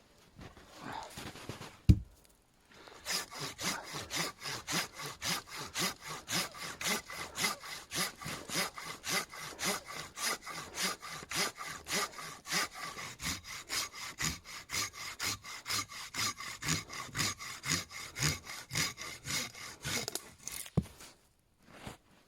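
Hand saw cutting through wood in a steady rhythm of quick back-and-forth strokes, starting about three seconds in and stopping near the end, after a single sharp knock.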